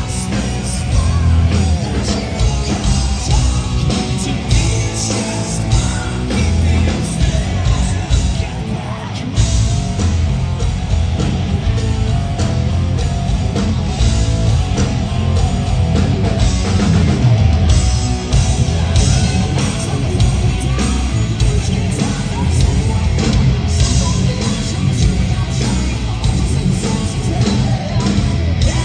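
Hard rock band playing live at full volume: distorted electric guitar, a driving beat and a male lead singer.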